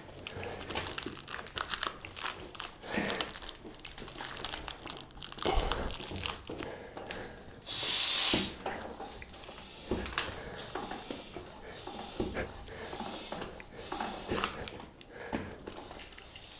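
Vee Tire Snow Avalanche studded fat-bike tire being worked by hand on its rim: scattered rubber rustling, creaking and scraping as the bead is pushed and pulled. There is a dull knock about five and a half seconds in and a short, loud hiss about eight seconds in.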